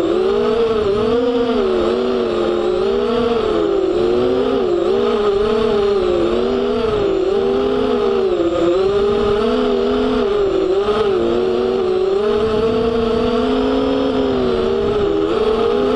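Motors and propellers of an FPV racing quadcopter whining, the pitch rising and falling smoothly as the throttle changes.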